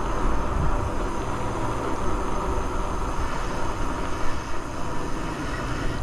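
Wind rushing over the microphone, with tyre noise, as an e-bike rolls along a paved street at about 15 mph. The sound is a steady rush, heaviest in the deep rumble.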